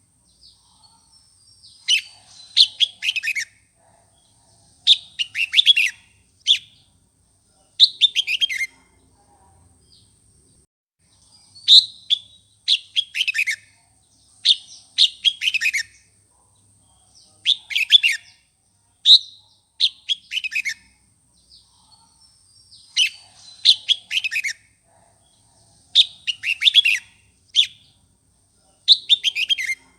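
Red-whiskered bulbul singing a loud, fired-up song: short phrases of quick notes that fall in pitch, repeated every two to three seconds, the kind of song played to rouse other bulbuls.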